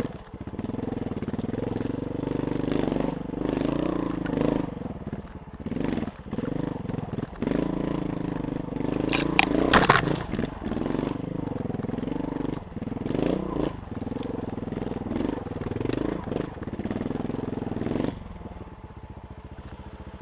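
Dirt bike engine revving up and down with the throttle while riding over rough ground, with scattered knocks. A brief high squeal comes about halfway through. Near the end the throttle closes and the engine settles to a quiet idle.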